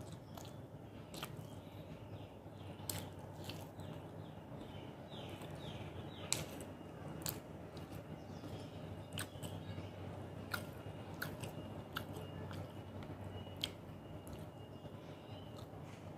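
Close-up chewing of food, with sharp wet mouth clicks and smacks from lips and fingers being licked, over a low steady hum.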